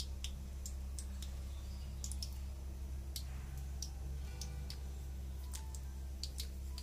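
Samosas deep-frying slowly in moderately hot oil in a kadhai: scattered small pops and crackles, irregular and a few a second, over a steady low hum.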